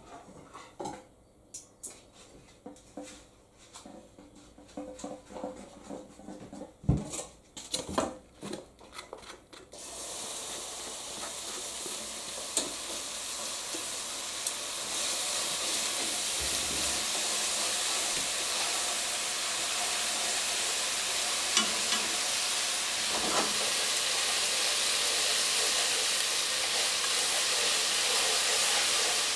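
Irregular clicks and knocks for the first ten seconds. Then a steady sizzle as natto goes into the hot buttered pan and fries, stirred with chopsticks.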